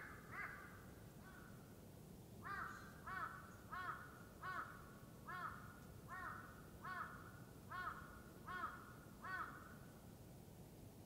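A crow cawing: one call at the very start, then a run of about a dozen evenly paced caws, a little under two a second, from about two seconds in, stopping about a second before the end.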